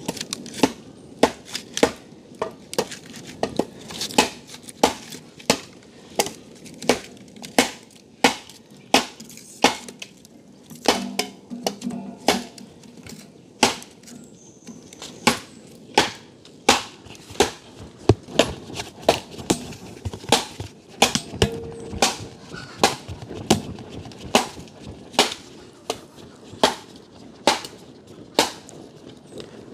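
Machete chopping wood: a steady run of sharp strikes, a little over one a second, with a short slack spell about halfway through.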